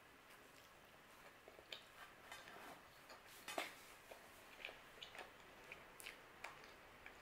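Faint chewing of a mouthful of pizza, with soft wet mouth clicks and smacks roughly twice a second, the loudest about three and a half seconds in.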